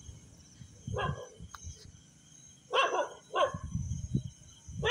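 A dog barking three times: once about a second in, then twice in quick succession near the three-second mark.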